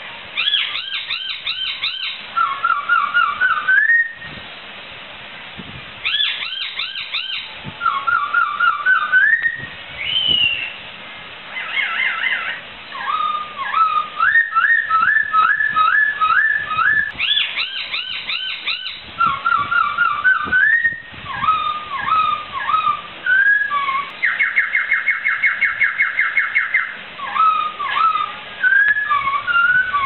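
Poksai (laughingthrush) singing: loud, clear whistled phrases of quickly repeated rising notes and sliding whistles, with short pauses between phrases and a fast, even trill about three-quarters of the way through.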